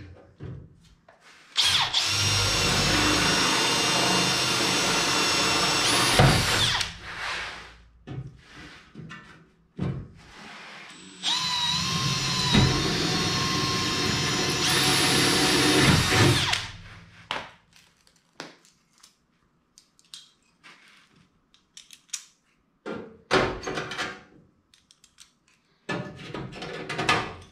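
Makita cordless drill boring 1/8-inch holes through the sheet-metal rear apron and wing of a 1965 VW Beetle, in two steady runs of about five seconds each with a high whine. Near the end come a few short metallic clicks as cleco fasteners are squeezed into the holes with cleco pliers.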